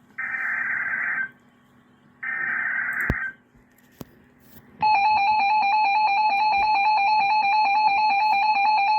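Emergency Alert System alert opening: two buzzy bursts of SAME header data, about a second each and two seconds apart. About five seconds in, the loud, steady two-tone EAS attention signal starts.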